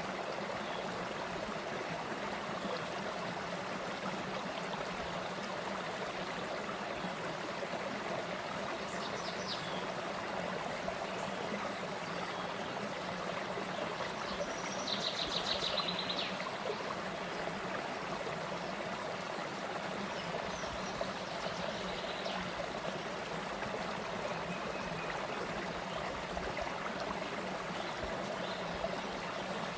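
Shallow rocky stream flowing over low ledges in small cascades: a steady rush and babble of water. About halfway through comes a brief, high, rapid trill.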